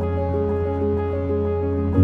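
Background music: soft held chords over a steady low bass note.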